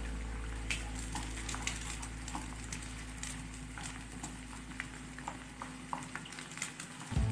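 Wooden spatula stirring and scraping eggs and chopped vegetables in a non-stick frying pan, with light sizzling and scattered crackles and taps. Low background music fades out near the end.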